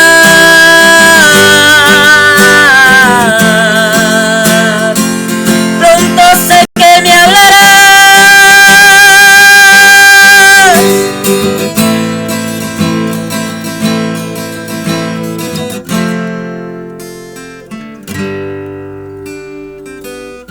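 Music: a voice holding long notes with vibrato over strummed acoustic guitar. From about halfway, the guitar plays on alone in single plucked notes, each ringing out, and the music grows quieter toward the end.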